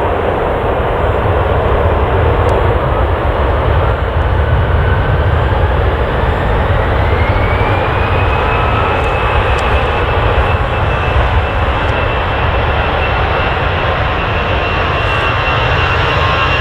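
Jet airliner engines running loud, with a deep rumble and a whine that rises over a few seconds, then holds steady from about halfway through. This is typical of the engines spooling up to takeoff thrust.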